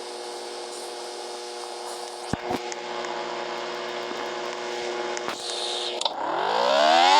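Motor-driven siren running at a low, steady pitch with a few clicks, then winding up about six seconds in into a loud, rising wail.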